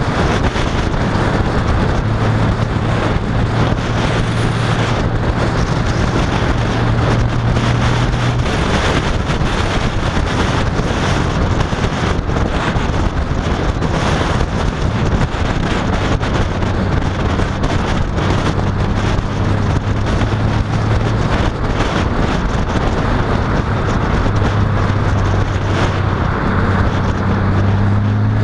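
Honda Valkyrie F6C's flat-six engine running at cruise under loud, steady wind rush on the microphone. The engine's hum drops in pitch and fades about a third of the way in, then comes back stronger in the second half.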